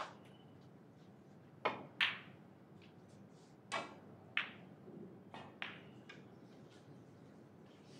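About six short, sharp knocks and clicks, scattered over several seconds above a low, steady room noise.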